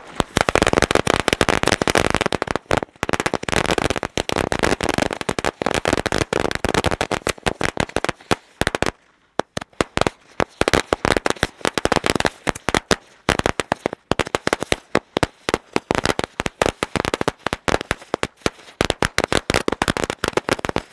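A 1000-shot firecracker string (a "1000 wala" ladi) going off as it burns along the ground: a rapid, unbroken rattle of small bangs. There is a brief lull about nine seconds in, then the rapid bangs carry on.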